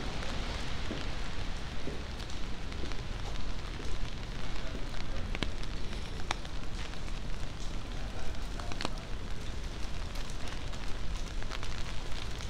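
Rain pattering on wet surfaces, with scattered sharp ticks of single drops over a steady low rumble.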